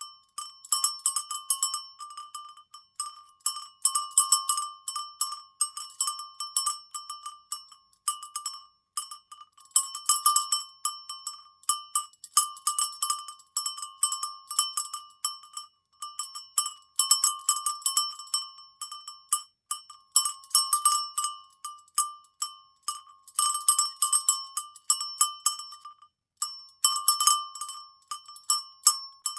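A metal cowbell shaken, its clapper clanking rapidly and irregularly against the bell so that it rings on the same few pitches, with a few brief pauses.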